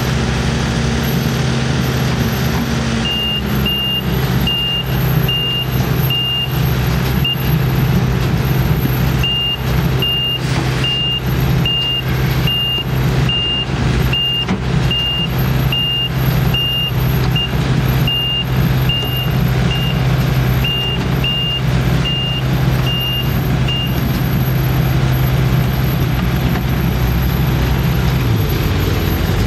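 A heavy machine's engine running steadily while its backup alarm beeps in an even series, a little under two beeps a second, with a short break partway through; the beeping stops a few seconds before the end and the engine note then drops.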